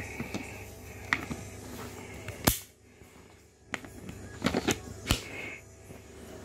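Several sharp clicks and knocks from metal airsoft pistols being handled, the loudest about two and a half and five seconds in.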